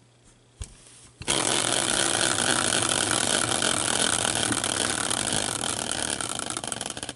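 Caster wheel used as a prize wheel, spun by hand on its bracket: a loud, dense whirring rattle of rapid ticks that starts about a second in and slowly fades as the wheel slows.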